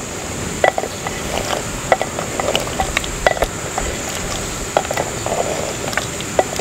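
A wooden spoon stirring chunks of lamb with mint and green-chilli paste in an earthenware handi. The spoon scrapes and knocks irregularly against the pot's sides.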